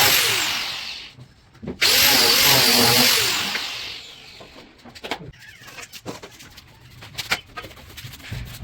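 A handheld electric power tool's motor runs, winds down, starts again abruptly about two seconds in and winds down once more. Scattered knocks and clicks follow in the second half.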